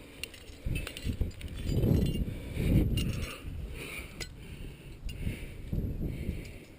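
Climbing hardware clinking: metal carabiners and gear knocking together in a run of light clicks while a climber ties in to the rope. Louder low rumbling movement noise swells about two to three seconds in.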